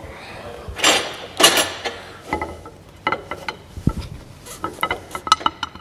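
A steel U-bolt clinking against a trailer spare wheel's metal rim and the galvanised drawbar as it is worked into place: two scraping rustles in the first second or two, then a run of sharp, ringing metallic clinks, with a dull knock about four seconds in.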